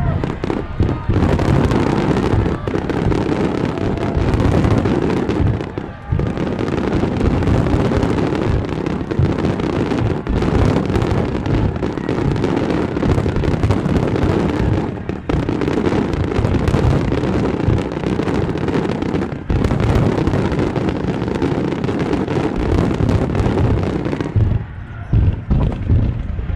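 Fireworks going off in a dense, continuous barrage of bangs and crackling, with only brief lulls, thinning out near the end.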